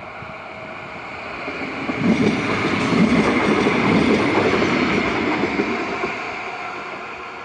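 A city tram passing by, the rumble of its wheels on the rails growing louder to a peak about halfway through, then fading away.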